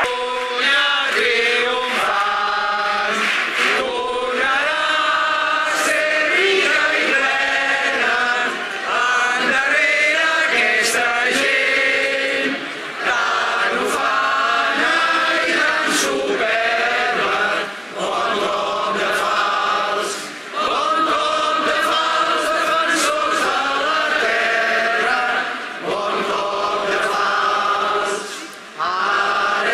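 A large crowd of protesters singing together in unison, many voices in long held phrases with short breaks for breath between them.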